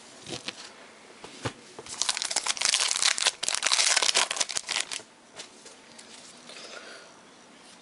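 Plastic wrapper of a sealed baseball card pack crinkling as it is torn open, after a few light clicks of handling; the crackling runs for about three seconds and then stops.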